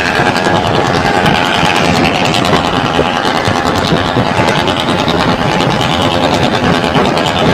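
The six-cylinder diesel engine of a loaded Alfa Romeo FNM D11000 truck running loud and steady on the road.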